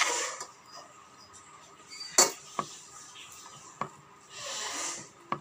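Hands mixing rice on stainless steel plates, with a few sharp clinks against the metal, the loudest about two seconds in. A short soft hiss comes about four seconds in.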